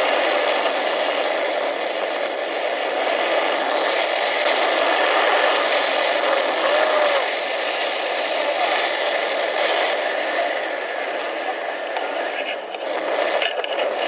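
Steady rush of wind over the microphone of a camera held out from a tandem paraglider in flight.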